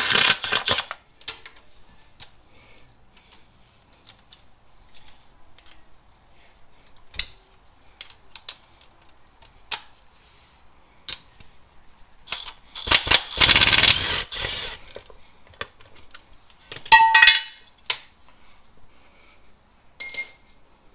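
Ratchet wrench on an extension clicking as the 10 mm bolts of a transmission inspection cover are undone, in two rapid runs, at the start and again about 13 seconds in, with scattered single clicks between. Short metallic clinks and rattles follow near the end as the cover comes off.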